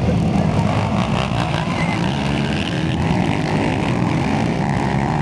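A pack of racing ATVs (quads) running together, many engines overlapping in one loud, steady sound.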